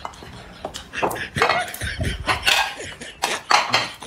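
Loud chewing and mouth-smacking of a man eating a steamed meat bun, in a run of short, irregular bursts.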